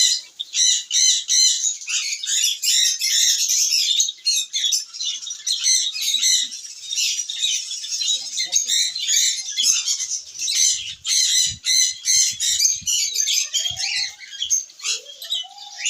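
Conures squawking and chirping in a rapid, nonstop stream of harsh, high-pitched calls.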